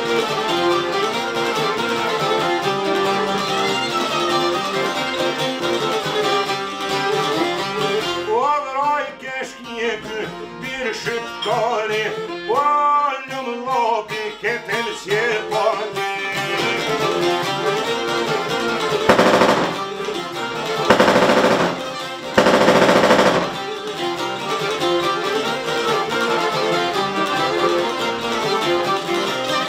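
Albanian folk music played on sharki, çifteli and violin: steady plucked strumming with a bowed melody. About two-thirds of the way through, three loud, rough bursts of noise, each about a second long, cut across the music.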